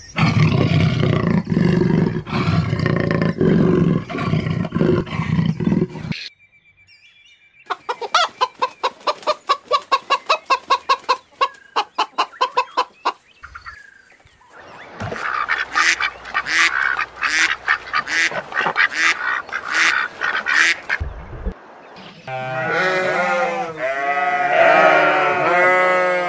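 Farm animals calling, in four separate clips: first a dense crowd of calls, then a quick run of repeated calls at about four a second, then another run of higher, harsher calls, and near the end calls that swing up and down in pitch.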